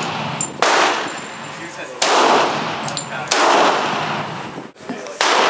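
A handgun fired four times, about one and a half seconds apart, each loud shot ringing out with a long echo.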